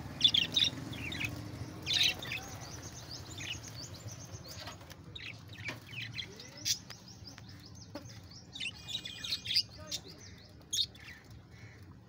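A flock of budgerigars chirping, in short high calls scattered throughout and coming in clusters, loudest near the start and again near the end; the keeper takes the birds to be frightened.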